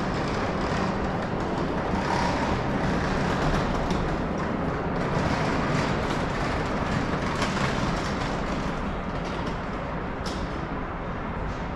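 Keisei Skyliner electric train standing at the platform with its onboard equipment running: a steady hum and hiss, with a few faint clicks.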